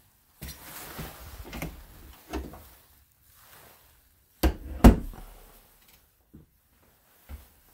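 Wooden closet door being handled: soft rustling and creaking as it opens, then two sharp knocks about half a second apart, and a few faint taps near the end.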